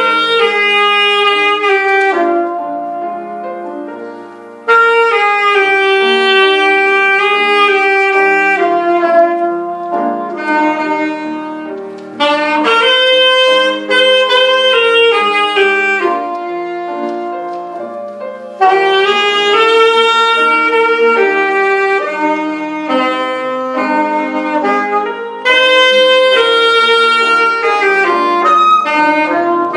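Saxophone playing a slow, lyrical melody in long held notes over a softer sustained backing accompaniment. New phrases start loud about four seconds, twelve seconds, eighteen seconds and twenty-five seconds in, and each fades down gradually.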